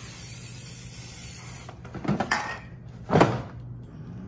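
Aerosol canola-oil cooking spray hissing for about a second and a half. Then the air fryer's basket is slid back into the unit, with a scrape and a loud clunk as it seats about three seconds in.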